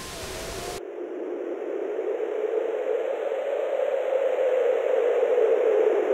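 Bursts of video static hiss for under a second, then give way to a rushing, droning sound effect that grows steadily louder and slowly sinks in pitch.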